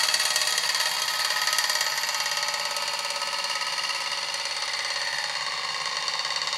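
A commercial chocolate fountain's motor running steadily, turning the auger that lifts the melted chocolate up the tower: a steady hum made of several high, even tones.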